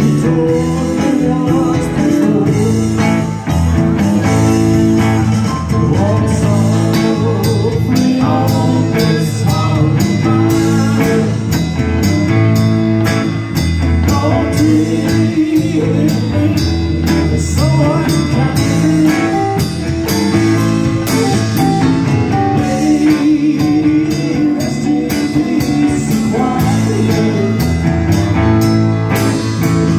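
Live blues-rock band playing: electric guitar, bass guitar and drums, with a man singing.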